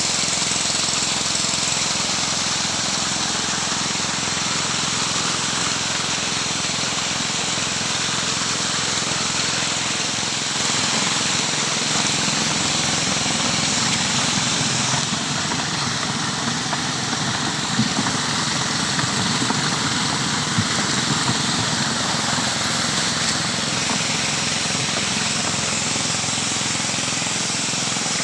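Robin petrol engine running steadily, driving a suction pump that draws up gold-bearing material.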